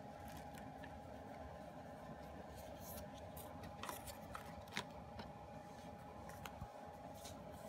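Hands handling an album's paper booklet, photocards and inserts: faint paper-and-card rustles and light ticks, the sharpest about halfway through, over a faint steady hum.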